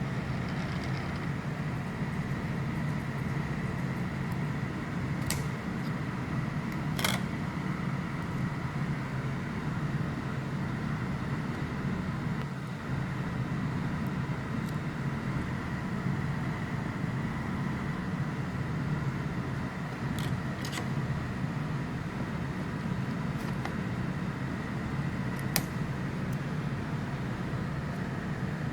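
DJI Inspire 2 brushless drone motor running steadily, a low whir with a thin high whine over it: the annoying motor noise the owner wants to fix. A few sharp clicks come through now and then.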